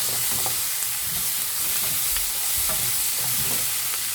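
Beef curry with mixed vegetables sizzling in a pan as it is stirred. A steady hiss runs under scattered knocks and scrapes of the utensil against the pan.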